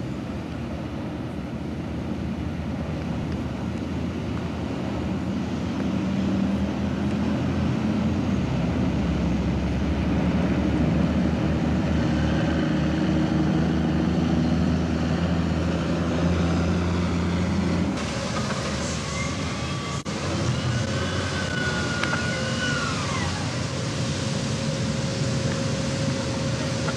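Heavy engine running steadily with a low drone that grows louder partway through, then changes abruptly. After that a machine whine rises, holds and falls over a few seconds, followed by a steady hum.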